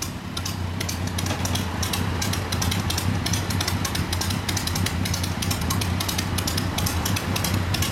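Motorcycle engines idling: a steady low engine note with rapid exhaust pulses.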